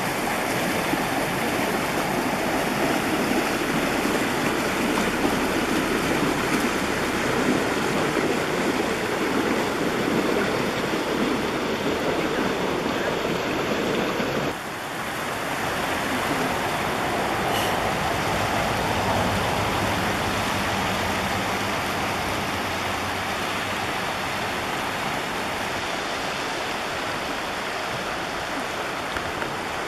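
Fast-running muddy floodwater rushing and churning as a steady wash of water noise. About halfway through it briefly drops and resumes a little quieter.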